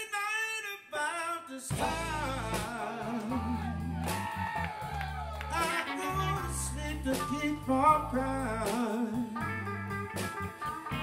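Live blues band playing the intro to a slow blues. A bending lead line sounds alone at first, then about two seconds in the drums, bass, electric guitar and keyboard come in together.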